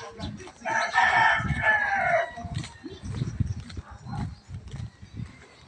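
A rooster crows once, a call of about a second and a half that falls in pitch at its end. Low, regular thumps of walking footsteps run underneath.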